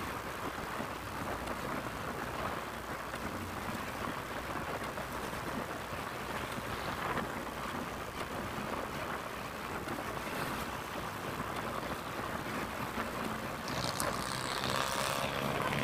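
Wind rushing over the camera microphone with steady road and traffic noise while riding along a multi-lane highway. Near the end the drone of another vehicle's engine rises as it comes up close.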